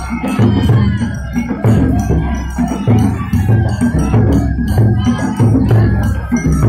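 Japanese festival float music (matsuri-bayashi): a deep drum beat about every second and a quarter, with fast metallic jangling strikes and a high melody line over it.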